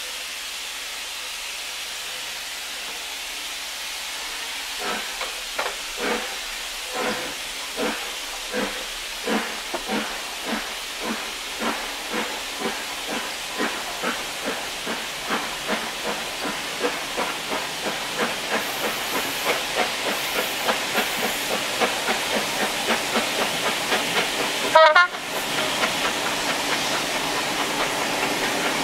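LMS Stanier 8F 2-8-0 steam locomotive getting a train away from a stand, heard from a carriage behind it. A steady hiss of steam from the open cylinder drain cocks gives way about five seconds in to the chimney exhaust beats, slow at first and quickening steadily as the train gathers speed. Near the end there is one brief loud bump.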